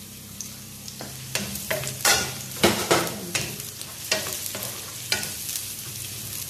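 A wooden spatula stirs and scrapes chopped onion, garlic, ginger and bay leaves around a non-stick wok in a series of strokes from about one to five seconds in. Underneath is a low, steady sizzle of the aromatics sautéing in oil.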